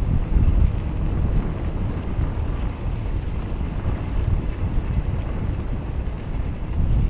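Wind buffeting the microphone: a loud low rumble that keeps swelling and dipping.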